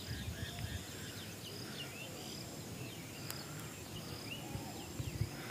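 Birds chirping, many short high calls repeating throughout, over a faint low rumble of wind.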